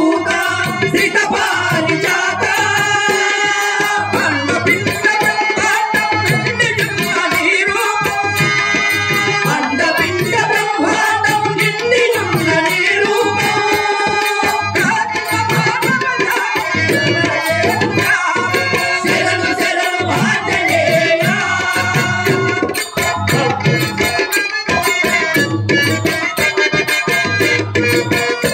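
Telugu bhajana music: harmonium melody over tabla and a rapid clatter of small hand cymbals (talam), playing without a break.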